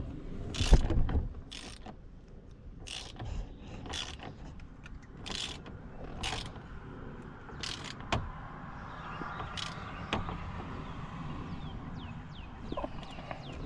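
Hand work on a truck's steering wheel and column: a run of irregular clicks and clanks, with one louder knock about a second in.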